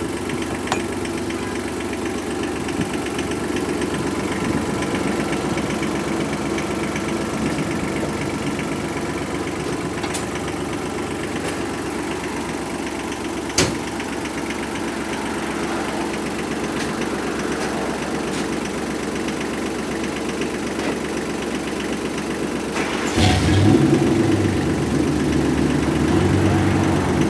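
Kawasaki Mule 3010's three-cylinder diesel engine idling steadily while warming up, waiting for the thermostat to open. A single sharp click sounds about halfway through, and a louder, deeper rumble comes in a few seconds before the end.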